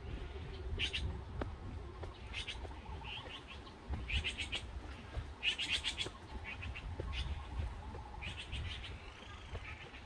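Rapid chirping in short bursts of a few quick pulses each, recurring every second or two from the trees, over a low rumble.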